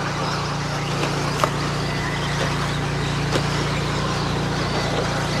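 Radio-controlled stock-class racing trucks running on a dirt track: a steady mixed whirr of several small motors and tyres, with two sharp knocks about a second and a half and three and a half seconds in.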